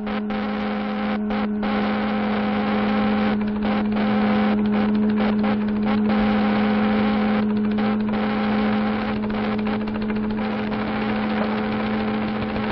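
Steady electrical hum with a buzzing hiss over it that keeps dropping out in short gaps: a machine-hum sound effect for an electrical blood-transfusion apparatus running.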